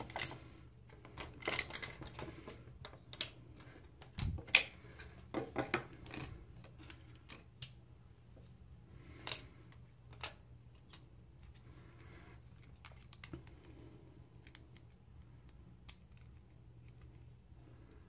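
Small plastic clicks and taps as the trimmer, its stand, heads and comb guards are pulled apart, snapped together and set down on a countertop. The clicks are scattered through the first ten seconds or so, then it goes mostly quiet over a faint steady low hum.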